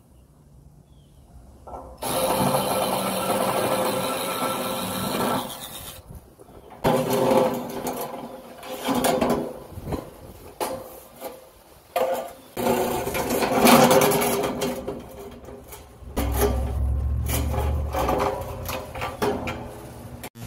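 Cordless drill running in several bursts of a few seconds each, spinning fasteners off aluminium hurricane shutter panels, with short knocks and clicks between the bursts.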